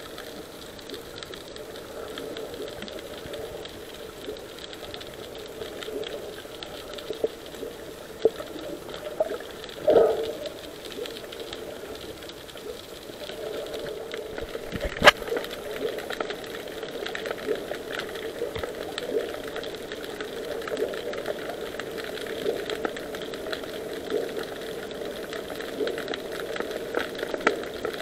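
Underwater sound picked up by an action camera in its waterproof housing: a steady, dense crackling rattle, with a dull knock about ten seconds in and a sharp click about fifteen seconds in.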